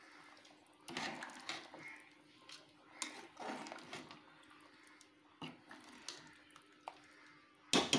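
A ladle stirring thick, liquid mutton kurma in a metal pot: irregular sloshing and scraping against the pot, strongest about a second in and again about three seconds in, with a few shorter knocks near the end.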